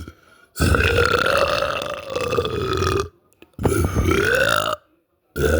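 A boy burping: one long burp of about two and a half seconds, then a shorter one of about a second, and a third starting near the end.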